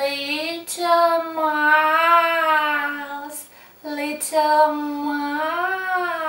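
A woman singing a nursery rhyme in a high voice, unaccompanied: two long phrases of held, gently wavering notes, with a short breath between them about three and a half seconds in.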